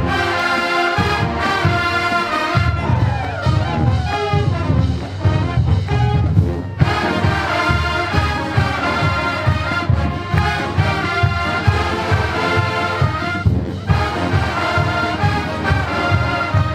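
College marching band playing brass over a steady drumline beat. There are sliding brass notes about three seconds in.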